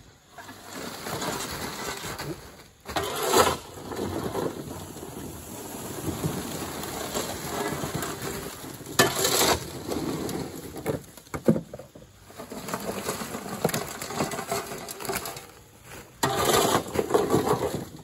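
Dry ears of corn rattling and clattering as they are shoveled by hand off a wagon bed into a sack, with a few louder rushes as each scoopful goes in.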